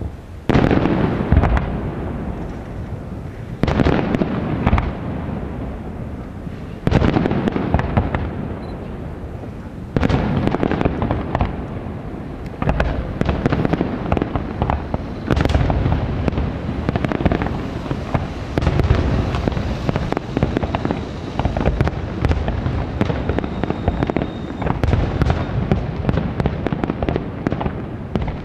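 Aerial firework shells bursting: single loud booms a few seconds apart, then from about halfway a dense barrage of overlapping bursts and crackling.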